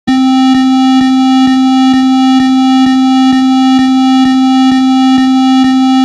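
Loud, steady electronic alert tone: one low buzzy pitch held without change, starting abruptly out of silence, with faint clicks about twice a second. It is the attention tone of a mock emergency alert broadcast.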